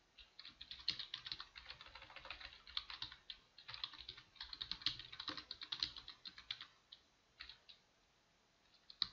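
Typing on a computer keyboard: a fast, uneven run of keystrokes that breaks off with a short pause near the end.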